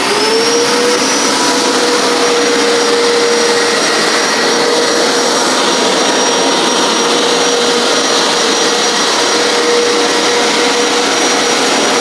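Hoover PowerScrub XL Pet carpet cleaner's motor switching on, its whine rising in pitch for about a second and then holding steady over a broad rush of noise as the machine runs and extracts from the carpet.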